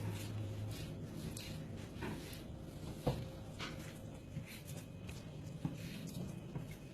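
Quiet, scattered clicks and knocks of knife work on a cutting board while lamb liver is cut and trimmed, the sharpest about three seconds in and again near the end.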